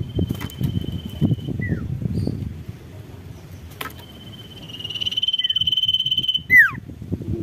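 A caged sirtu, the common iora, singing. A long thin high whistle is followed by a short falling note. A second whistle swells into a fast pulsing trill and breaks off in a loud, sharp downward-sweeping note about six and a half seconds in.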